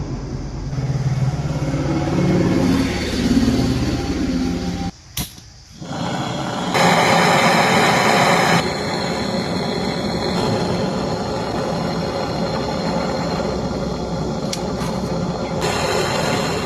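Gas brazing torch flame hissing steadily while a refrigerator filter drier is brazed into the line. It dips briefly with a click about five seconds in, and is louder for a couple of seconds around seven seconds in.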